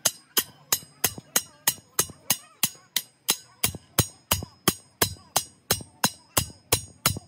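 Steel hammer striking a hot steel strip on an anvil in a steady rhythm, about three blows a second, each with a short metallic ring: hand-forging a bend in the strip.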